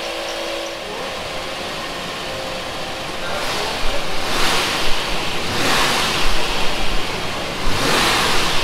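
Vortec 350 small-block V8 running after its distributor was turned 180 degrees, now firing instead of backfiring; it is revved by hand at the throttle three times, each rev a loud rushing surge of intake and engine noise.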